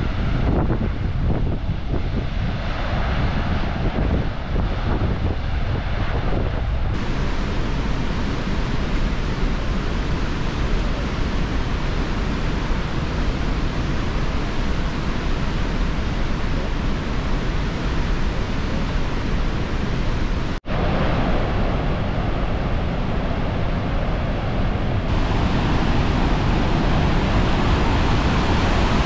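Steady, loud roar of Dettifoss waterfall, with wind buffeting the microphone in the first few seconds. There is a momentary drop in the sound about two-thirds of the way through.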